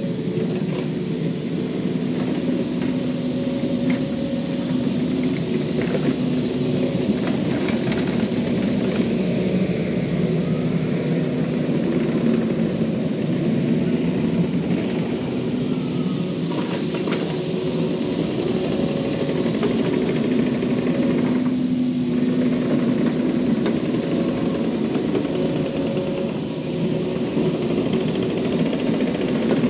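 Yanmar compact excavator's diesel engine running steadily as the machine digs, swings and tracks, with a few faint clanks.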